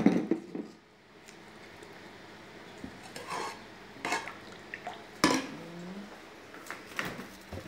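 Metal spoon clinking and scraping against a nonstick saucepan as thick mushroom soup is stirred. There is one loud knock at the start, then a handful of sharper clinks spaced out over the next seconds.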